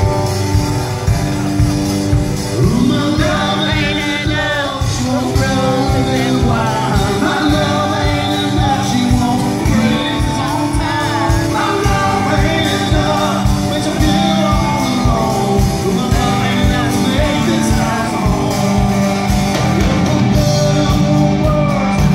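Live rock band playing with a singer over a steady drum beat.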